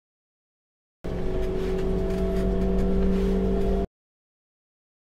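Steady vehicle engine drone with a few even hum tones, lasting about three seconds and starting and stopping abruptly between silent gaps.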